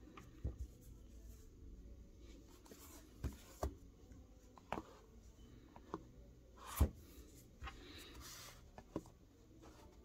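Handling noise from a closed folding knife with ribbed aluminium (Alox) scales being held and set down on a mat: faint rubbing with a scattered series of light taps and knocks, the loudest about seven seconds in.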